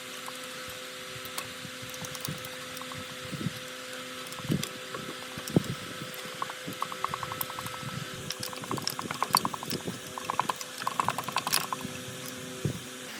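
Hand work on metal parts: scattered clicks and knocks, with short fast runs of rattling ticks, over a steady low machine hum.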